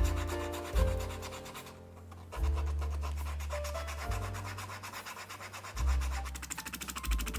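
Rapid, even back-and-forth rubbing on the edge of veg-tanned leather as it is finished, over background music with a steady bass line.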